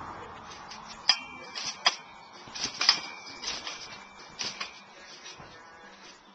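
Garden trampoline's metal springs clanking and clinking with the bounces, each clank with a brief metallic ring, about one every 0.8 seconds for a few seconds before fading off.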